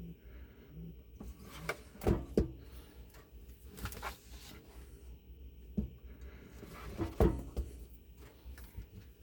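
Scattered knocks and clunks of LiFePO4 battery cells being handled and set into a battery case, a pair of sharp knocks about two seconds in and the loudest one around seven seconds in.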